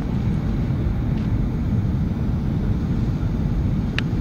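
Steady cabin noise of a jet airliner on its approach to landing: an even low rumble of engines and rushing air, with a short click near the end.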